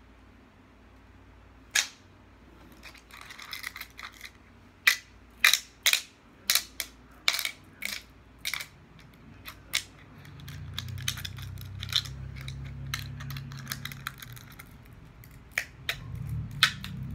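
Sharp metallic clicks and clacks from a small metal object worked between the fingers, coming irregularly and sometimes several a second. From about ten seconds in a low steady hum runs under the clicks.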